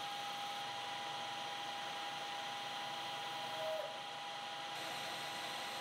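Metal lathe running: a steady whine over a hiss, with a brief higher note about three and a half seconds in.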